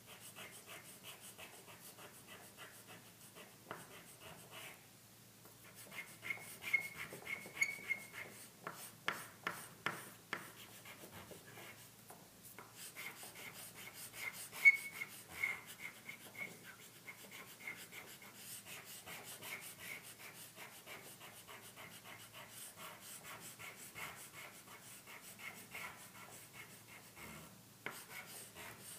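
Orange chalk scratching back and forth on black paper in quick, repeated strokes as a segment is coloured in, stopping briefly a few times.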